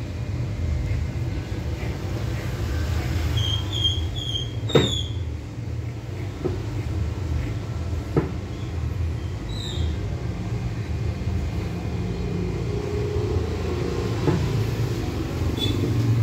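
Electric hair clipper buzzing steadily while cutting short hair, with a few sharp clicks along the way.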